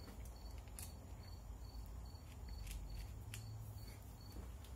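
Quiet workbench room tone: a few light clicks of handling over a faint high chirp that repeats about three times a second, with a low hum underneath.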